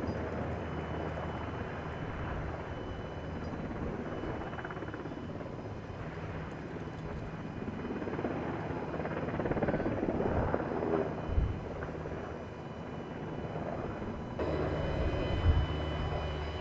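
Steady low mechanical drone over a rushing noise, with two short thumps, about eleven and fifteen seconds in.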